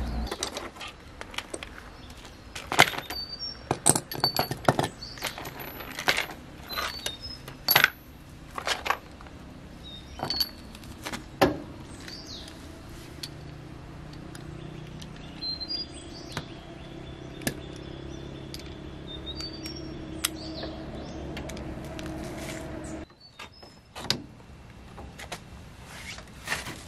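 Steel hand tools clinking: sockets and wrenches picked up and set down on concrete and in plastic cases, a string of sharp metallic clinks that ring briefly, thickest in the first half.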